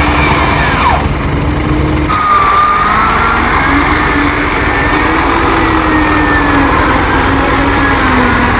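Off-road vehicle engine running, its pitch rising and falling slowly as the revs change.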